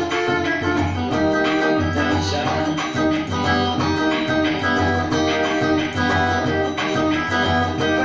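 Instrumental xote tune with a guitar playing the melody over an accompaniment with a steady beat.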